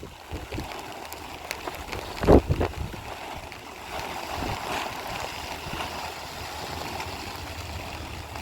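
Running, gurgling water with a low knock about two seconds in.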